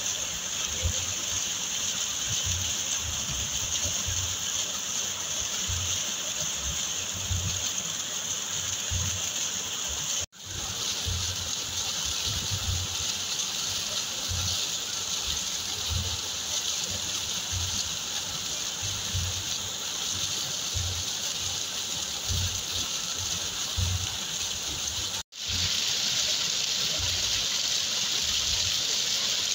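Waterfall: a steady hiss of falling and splashing water. It cuts out briefly twice, about ten seconds in and again near twenty-five seconds.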